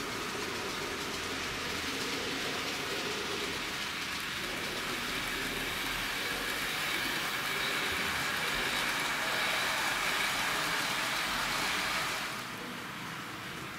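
N-scale model steam locomotive and coaches running on the track: a steady rattle of small wheels on rail with a faint whine from the electric motor, growing louder as the train passes close and dropping away near the end as it leaves.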